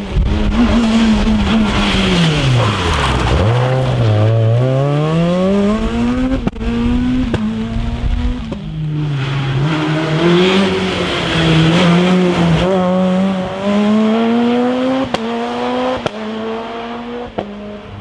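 Peugeot 207 rally cars at full effort: an engine drops sharply from high revs to low over about three seconds as the car brakes and changes down, then climbs again through a series of rising pulls broken by gear changes. A few sharp cracks punctuate the engine note.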